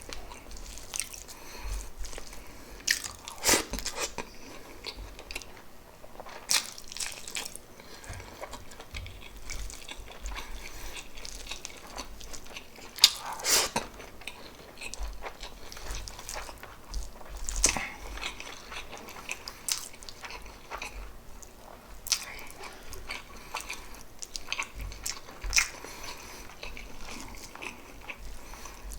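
Close-miked mouth sounds of someone eating pork adobo with rice: biting and chewing with wet smacks and irregular sharp clicks. The loudest click comes about thirteen seconds in.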